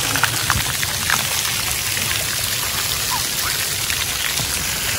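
Splash pad water jets spraying, the water pattering down onto the wet pad surface in a steady, rain-like hiss.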